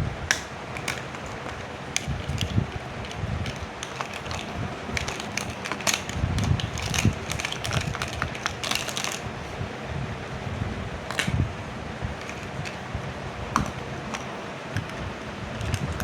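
Small plastic toy pieces clicking and tapping as they are handled, with a dense run of quick clicks from about five to nine seconds in, over a steady background hiss.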